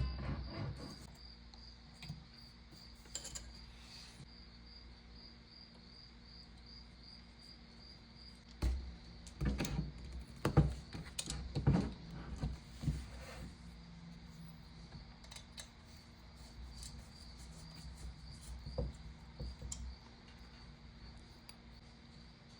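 Handling noises of an air rifle and its metal rail parts: a sharp knock as the rifle is turned over and set down, then a cluster of knocks and clicks from about nine to thirteen seconds in, with scattered small ticks, over a faint steady high tone.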